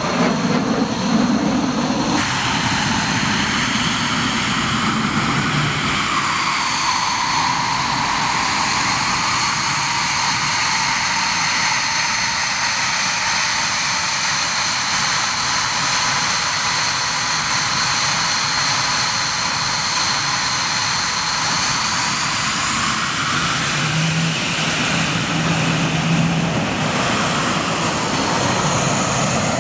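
Dassault Mirage 2000's single SNECMA M53 turbofan whining steadily at low taxi power over a rushing exhaust noise. The whine shifts in pitch a few seconds in and eases near the end. A broader jet rumble fills the first couple of seconds.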